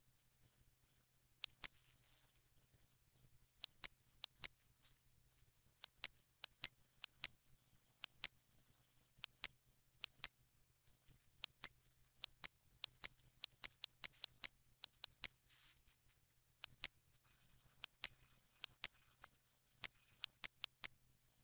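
Dozens of sharp, irregular clicks from a computer mouse and keyboard, often in quick pairs, over a faint steady low hum.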